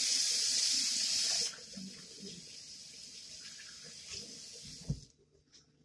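Kitchen tap running, loudest for the first second and a half, then a softer stream until it is shut off about five seconds in. There is a short knock just before it stops.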